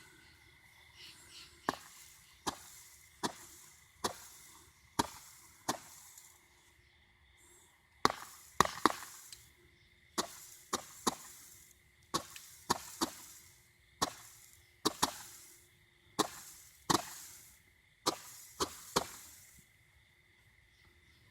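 TNT Fireworks Green Stars Barrage 200 g cake firing its shots one after another: a string of sharp, fairly faint pops, about one or two a second, some in quick pairs or triples. There is a brief pause in the middle, and the last shot goes about a second before the end.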